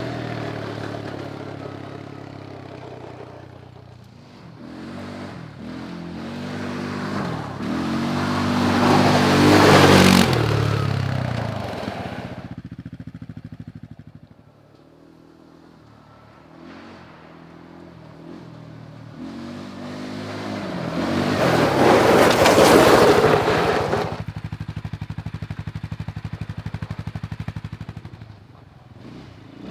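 CFMOTO CForce 520L ATV's single-cylinder engine revving and pulling away as the quad is ridden past twice, loudest about ten seconds in and again a little past twenty seconds, fading away between the passes.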